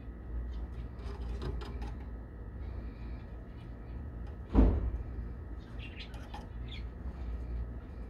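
Small cage birds moving about a wooden cage: light clicks and scratches over a steady low hum, with one loud knock just past halfway.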